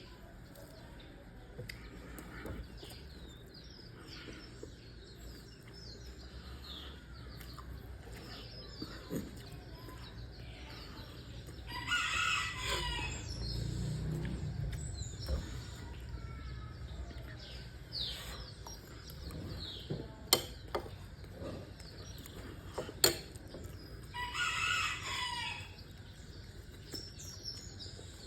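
A rooster crowing twice, each crow lasting about a second and a half, about twelve seconds apart. Small birds chirp faintly in between, and there are two sharp clicks.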